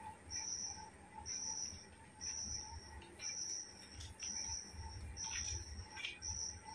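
A cricket chirping, a high note of about half a second repeating evenly about once a second. Faint low handling noise comes in from about four seconds in.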